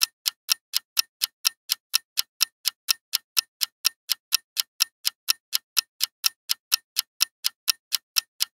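Countdown timer sound effect: a clock ticking steadily, about five ticks a second.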